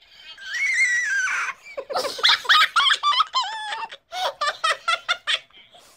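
A person laughing, pitched up very high by a helium voice-changing effect: a long squeal near the start, then a quick run of short, squeaky laughing bursts.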